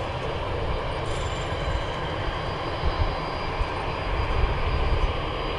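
Boeing 737-800 CFM56 jet engines running at low thrust as the airliner taxis and turns onto the runway: a steady rumbling roar with a faint high whine above it, over a gusty low rumble.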